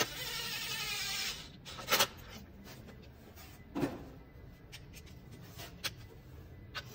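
A rasping noise lasting about a second, then a few separate sharp clicks and knocks from hand tools as spark plugs are being tightened into the engine.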